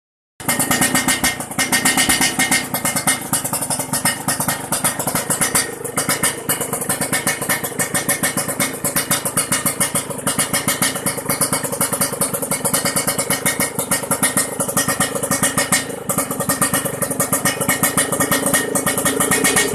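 Yamaha RX-King's 135 cc two-stroke single idling through an underbelly aftermarket exhaust, a rapid, even crackling pulse, starting about half a second in.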